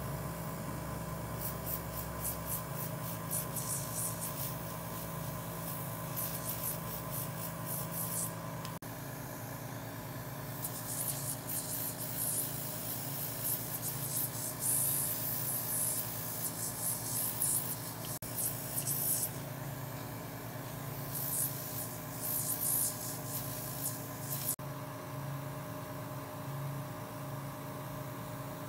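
Oxygen facial machine's handheld applicator spraying pressurized oxygen and serum onto the skin: a hiss that comes and goes in spurts over a steady machine hum. The hiss is weaker near the end.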